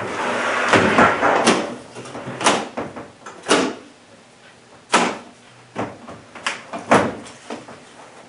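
A hard rifle case scrapes as it is shifted on a countertop. Then its locking latches are snapped open one after another, a string of sharp clicks about a second apart, with a few lighter clicks and knocks as the lid is lifted.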